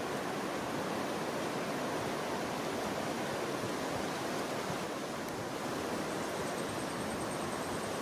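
Steady rushing rainforest ambience, even and unbroken, with a faint high-pitched pulsing tone joining about six seconds in.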